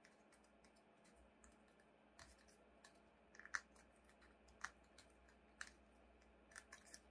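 Faint, scattered clicks and crackles of folded origami paper being pressed and creased between fingers, a few short sharp ticks with gaps between them.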